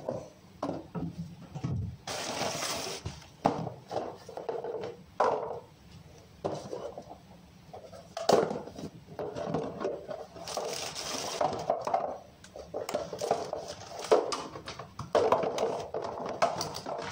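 Plastic food containers and lids being handled in a kitchen: irregular clatters and knocks against the counter, with a couple of longer rustling stretches.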